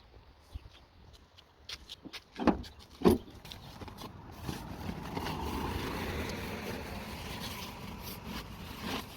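A few sharp knocks, then a vehicle going by, its noise building and fading over several seconds.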